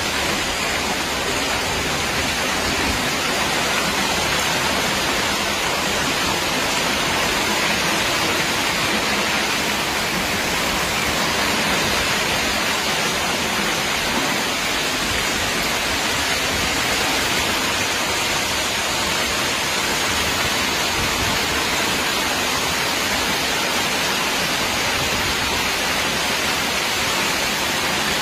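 Heavy hailstorm: hail and rain pelting down in a dense, steady rush of noise.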